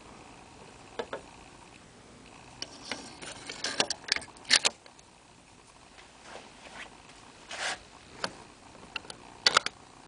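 Metal clicks and short scrapes from the parts of a Bailey patent bench plane being handled, as the blade and cap iron are set onto the frog and the cam-lock worked. They come in irregular clusters, busiest in the middle and with a few sharp clicks near the end.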